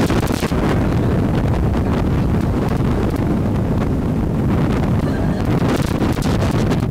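Storm wind buffeting the microphone: a loud, steady low rumble with gusty crackling.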